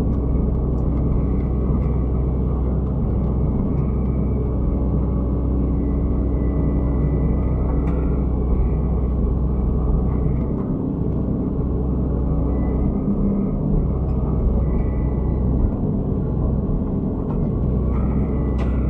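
Excavator's diesel engine running steadily under work.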